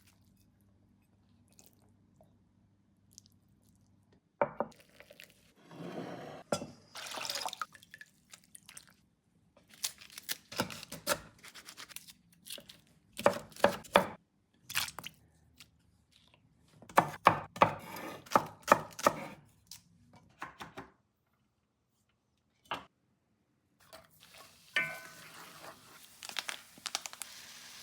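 Kitchen food-preparation sounds: scattered knocks and clatters, with short bursts of rushing noise between quiet gaps. Near the end a faint steady hiss sets in as food starts to sizzle in a pan.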